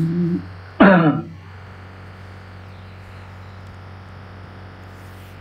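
A man's voice gives a short low hum, then clears his throat once about a second in. After that only a steady low electrical hum and faint hiss of the recording remain.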